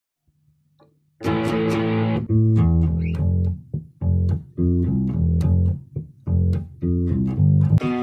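Electric guitar and electric bass playing a rock riff. After a near-silent first second, a full chord rings out, then the riff comes in short, bass-heavy phrases with brief breaks between them.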